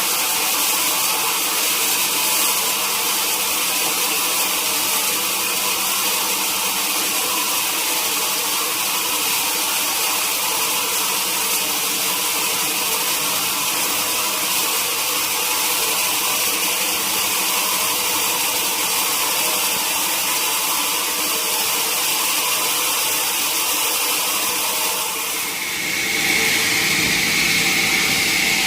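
Sawmill machinery running steadily. About 25 seconds in the sound changes, and a steady high whine and a low hum come in.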